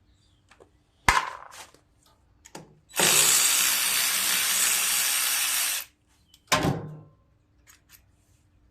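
A power tool running steadily for about three seconds, backing out the 5/16 carburetor mounting bolts on a Briggs & Stratton 17.5 hp mower engine. Sharp metal knocks about a second in and again at about six and a half seconds, with a few small clicks of tools and parts.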